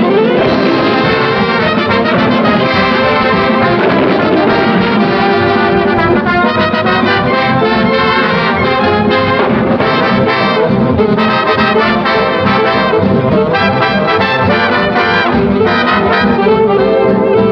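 Upbeat brass-band music with trumpets and trombones, starting suddenly after silence and playing on steadily: a cartoon's opening theme tune.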